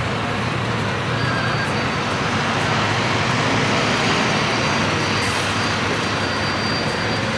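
Steady traffic noise of a busy city street: an even rush of passing vehicles.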